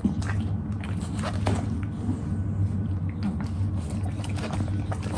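English bulldog snuffling along the floor and chewing small pieces of apple, with irregular wet clicks and smacks over a steady low hum.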